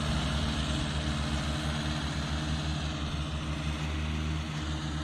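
Mahindra 575 tractor's diesel engine running steadily under load, pulling a loaded tipper trailer through soft sand, with a low, rapid pulsing.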